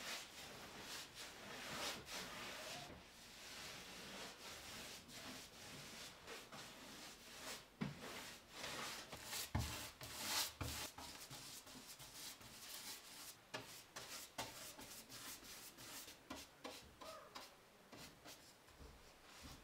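Faint swishing of a paintbrush stroked back and forth over wooden plank boards, in irregular strokes. There are a couple of soft knocks about eight and ten seconds in.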